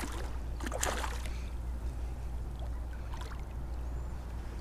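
Water splashing as a hooked flounder thrashes at the surface beside the kayak and landing net: two splashes in the first second or so and a smaller one about three seconds in, over a steady low rumble.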